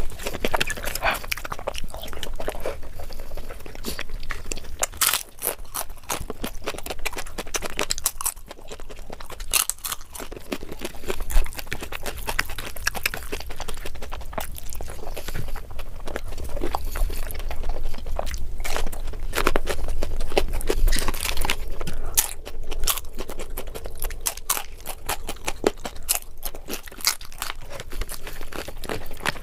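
Close-miked eating: a person chewing and crunching a mouthful of curry and rice eaten by hand, with many sharp wet clicks and smacks throughout.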